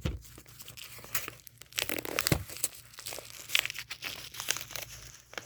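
Taped packaging of a mail-order parcel being torn open and crinkled: a string of irregular crackles and short rips.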